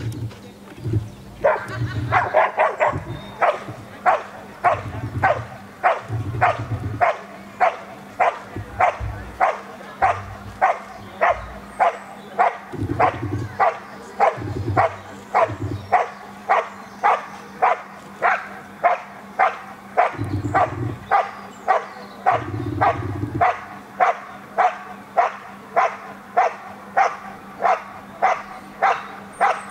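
A dog barking steadily and rhythmically, about two barks a second, in a protection-trial bark-and-hold: the dog stands at the hiding blind and barks at the concealed helper to hold him in place.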